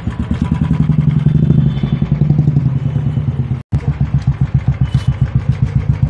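Royal Enfield Classic 350's single-cylinder engine idling with an even, rapid exhaust beat, a little louder in the first two seconds. The sound drops out for an instant just past halfway.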